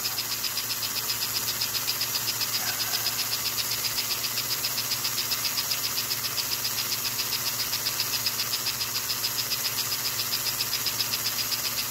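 American Flyer 287 toy steam locomotive running under power: its electric motor and gearing whirring steadily with a fast, even ticking over a low hum.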